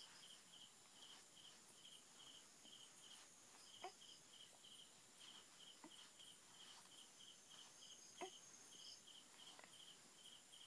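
Faint cricket chirping: a steady run of short chirps, about three a second, with a couple of soft brief clicks partway through.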